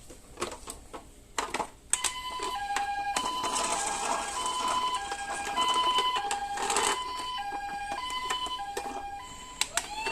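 Toy ambulance's electronic two-tone "pee-po" siren playing through its small speaker, switching between a high and a low note about every half second, over a rattling noise. A few clicks come before it starts, about two seconds in, and as it stops near the end.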